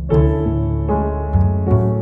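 Instrumental jazz-style Christmas music: piano chords over a low bass line.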